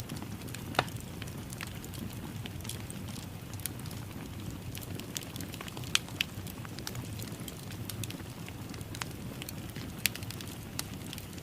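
Wood fire in a fireplace crackling, with sharp pops scattered irregularly over a steady low rush of the flames. The loudest pops come about a second in, around six seconds in and about ten seconds in.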